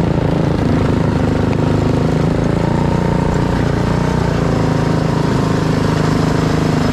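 Motorkart's small engine running steadily at low speed, heard from on board, as the kart rolls slowly on light throttle.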